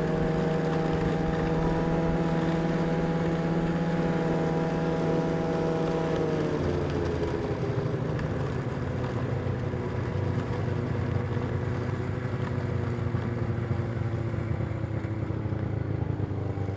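Snowmobile engine running steadily, then dropping in pitch about six seconds in as it slows and settles to a lower, steady speed.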